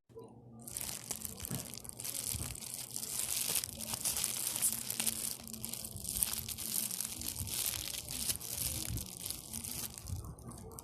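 Close, continuous crinkling and crackling from squishy toys being squeezed and handled for ASMR.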